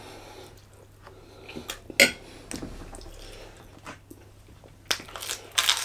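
A metal spoon clinking and scraping against a white ceramic bowl of chilli, with a sharp clink about two seconds in and a short run of clatter near the end.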